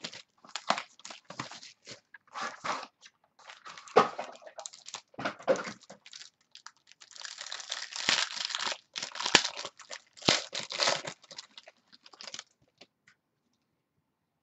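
Plastic wrapping being crinkled and torn off a sealed box of trading cards: irregular crackling and rustling, densest about seven to nine seconds in, stopping about twelve seconds in.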